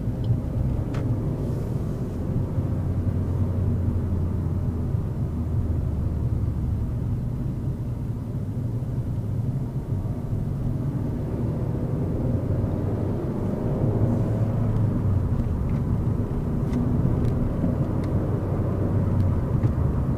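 Suzuki Swift Sport's 1.6-litre four-cylinder engine and road noise heard from inside the cabin while driving. A steady low rumble, with the engine note rising for several seconds about halfway through as the car accelerates.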